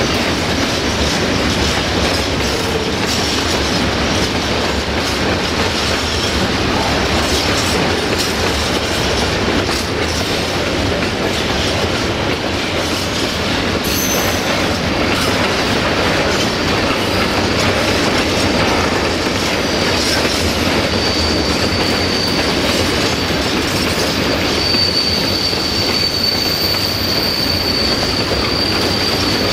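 Tank wagons of a freight train rolling past at steady speed, their wheels running on the rails with a continuous rumble and clatter. About two-thirds of the way through, a thin high wheel squeal sets in and grows louder near the end.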